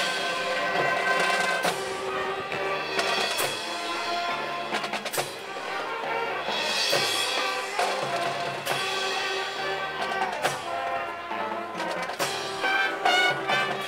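High school marching band playing: sustained wind and brass chords over a moving bass line, with drum and percussion hits throughout.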